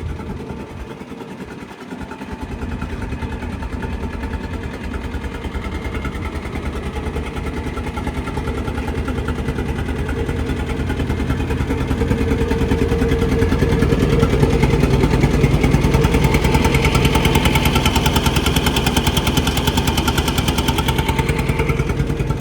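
Diesel engine of a Kubota 75 skid steer running, dipping briefly a second or two in and then building louder about halfway through, with a high whine that stops shortly before the end.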